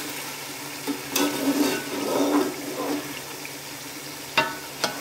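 Mutton pieces frying and sizzling in a metal pot while a perforated metal spatula stirs and scrapes through them, with sharp metal-on-metal clinks about a second in and twice near the end. The cooking water has dried off, so the meat is frying down in its fat with the onions.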